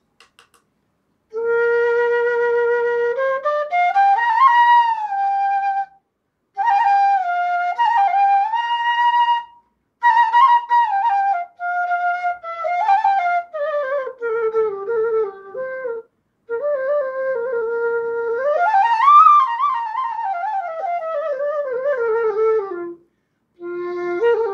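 Punam Flutes bamboo bansuri in A sharp, played as a slow melodic demonstration: phrases of held notes and gliding slides between them, opening on a long low note, with short breaks for breath between the phrases.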